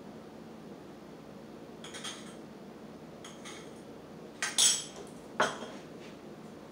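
Metal utensil and pot lid clinking against a stainless steel cooking pot: a few separate clinks, the loudest a pair about two-thirds of the way in, over a steady low hum.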